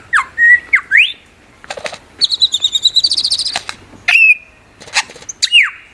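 Lyrebird singing a string of varied calls: sharp whistled notes sweeping up and down, a fast chattering trill about two seconds in, then more down-slurred whistles.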